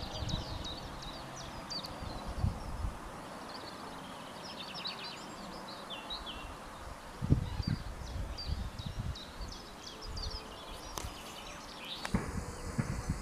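Small songbirds singing, a busy mix of short high chirps and trills. Irregular low rumbles of wind on the microphone, strongest about seven to nine seconds in.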